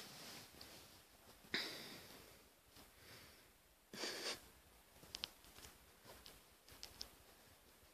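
Near quiet, broken by two short breathy puffs like sniffs or snorts close to the microphone, about a second and a half in and again about four seconds in, then a few faint soft clicks.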